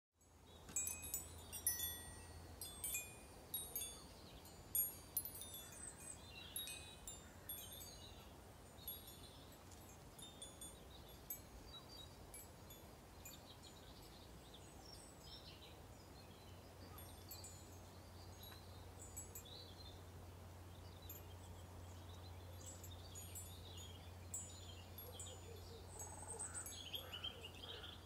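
A hanging sculpture of dozens of keys on strings, clinking and tinkling against each other like a wind chime. The clinks come thick and fast for the first several seconds, then thin out to occasional tinkles.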